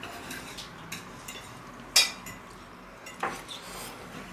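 Knife and fork clinking on a plate while eating, with one sharp clink about two seconds in and a softer one about a second later, between faint light ticks.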